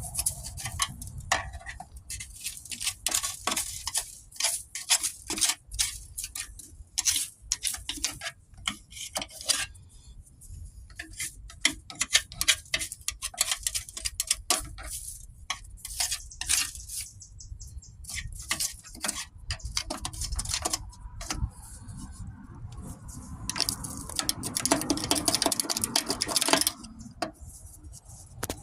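Irregular sharp clicks and clatter of metal, like tools and parts being handled while working on a mower, with a few seconds of denser rushing noise near the end.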